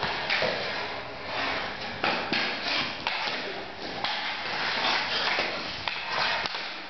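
Hockey sticks scraping and tapping on a concrete garage floor, with sharp knocks of sticks hitting a small ball now and then.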